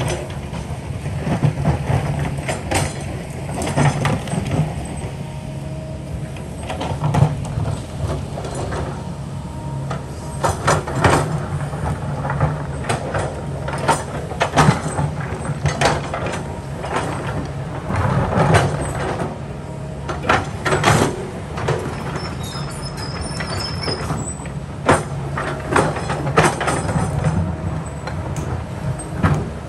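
Kobelco excavator's diesel engine running steadily under load, with repeated clanks and scrapes of the steel bucket against rock.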